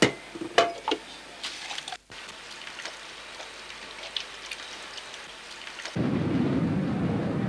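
A few clinks, then a tap running steadily while a glass is rinsed under it. About six seconds in this gives way to the louder, low rumble of a passenger jet's engines as it rolls along a runway.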